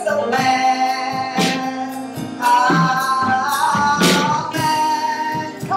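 A woman singing a worship song in long held notes over instrumental accompaniment, with a few sharp percussive hits.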